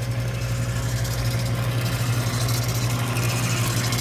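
KitchenAid 8-quart commercial stand mixer running on low speed, its paddle beater turning flour into creamed cookie batter, a steady motor hum.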